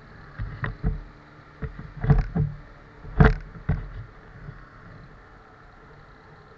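Benelli TNT 15 motorcycle riding on a rain-soaked road, a steady low running noise under a cluster of sudden bursts of noise through the first four seconds, the loudest a little past three seconds in.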